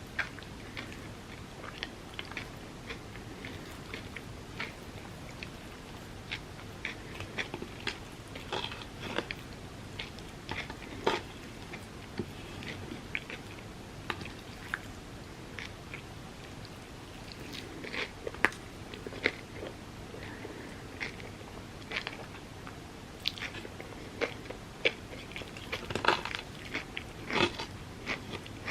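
A person biting and chewing Dubai chocolate crepes, with many short, sharp mouth clicks and occasional crunches, coming thicker near the end.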